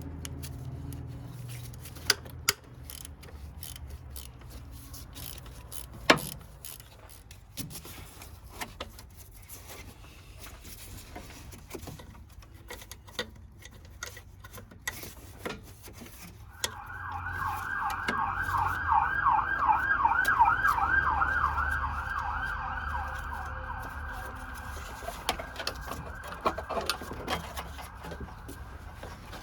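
A few sharp clicks and knocks in the first half. About halfway through, an emergency-vehicle siren in fast yelp mode starts up, warbling about four times a second; it grows louder, then fades as it passes.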